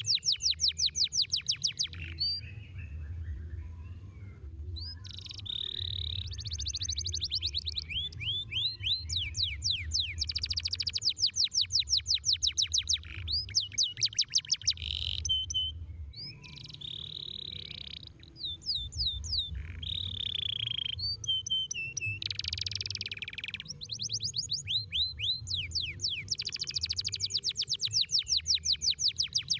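Domestic canary singing in long rolling trills of rapidly repeated down-sweeping notes, about nine a second, broken by short pauses and a few held whistled notes.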